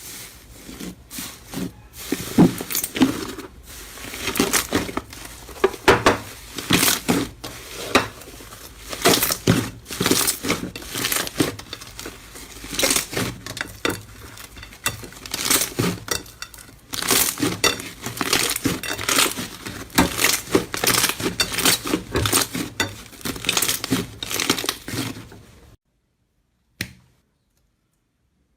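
Slime being squeezed and poked by hand, making dense, irregular crackling and clicking pops that stop suddenly near the end, with one faint click after.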